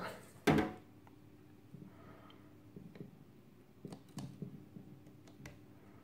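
Hands handling a small circuit board clamped in the crocodile clips of a helping-hands stand: one louder brief knock about half a second in, then a few faint clicks and taps.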